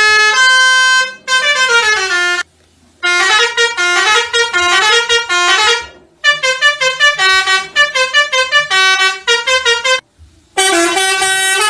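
Telolet horn for a bus or truck playing a tune: quick runs of short stepping notes, with one sliding run that falls in pitch early on. The tune breaks off twice into brief silences.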